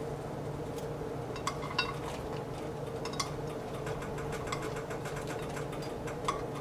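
A few light clinks and taps of a plate and food against a nonstick wok as fish cake strips and sliced green onions are tipped in, over a steady low hum.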